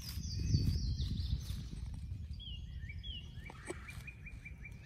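Songbirds singing in woodland: a quick run of high falling notes, then two short downward notes and a fast trill of repeated notes near the end. A low rumble sits under the first second or so.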